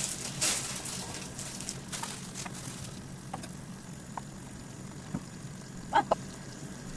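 Food sizzling and crackling in a hot pot as ingredients go in. It is busiest for the first few seconds, then settles to a quieter sizzle over a steady low hum.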